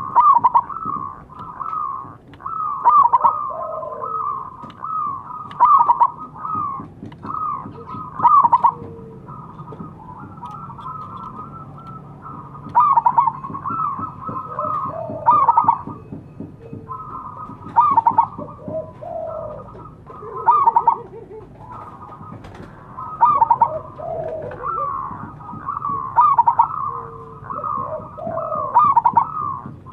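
Zebra doves (perkutut) cooing in rapid, rolling phrases. Several birds' calls overlap, with a loud burst of calling every two to three seconds.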